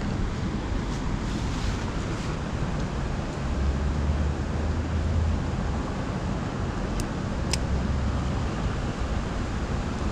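Steady rushing of a fast-flowing chalk stream, with low wind buffeting on the microphone in places and a couple of brief clicks about seven seconds in.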